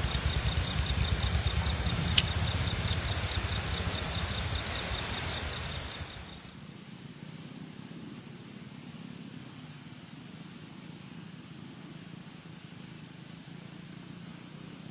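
Argo Lawu passenger train rumbling past with a rapid, even pulsing and a sharp click about two seconds in, cutting off abruptly about six seconds in. After that only a steady high insect chirring trill remains.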